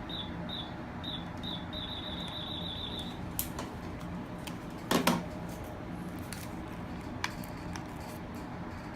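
Radar detector alert beeps: short high beeps repeating faster and faster, then stopping about three seconds in. A loud knock comes about five seconds in, over a steady low hum.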